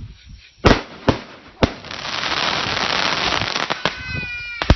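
Fireworks finale: three sharp aerial bangs about a second in, then a dense, continuous crackling from about two seconds. Near the end comes one more bang.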